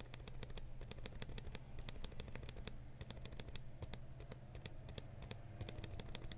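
A hand-assembled, unlubricated Holy Panda tactile mechanical keyboard switch pressed over and over, making many sharp clacks as it bottoms out and springs back.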